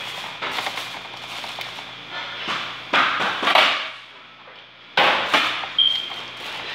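Clatter of metal cookware and lids being handled on a stove: a series of sharp knocks and scrapes, loudest in two pairs in the middle and near the end, with a brief high squeak near the end.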